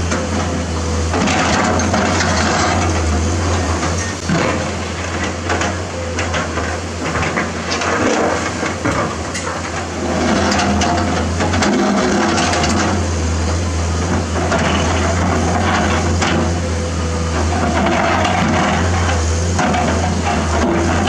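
Komatsu PC210-10 crawler excavator's diesel engine running steadily under load as the bucket digs and scrapes through rocky soil, with stones knocking and clattering throughout. The overall sound eases off for a few seconds partway through.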